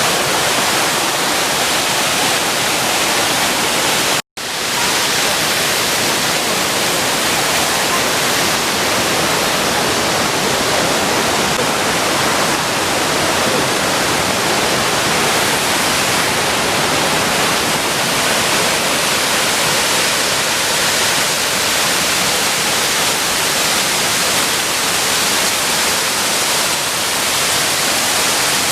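Steady rushing of the Shiraito Falls waterfall, loud and even. It cuts out completely for a moment about four seconds in.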